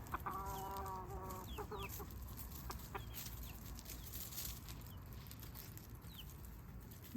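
Chickens foraging: a hen gives a drawn-out cluck about a second long at the start, then short high peeps falling in pitch come now and then, the little chick sound of a half-grown chick. Light scratching and rustling in dry leaves runs underneath.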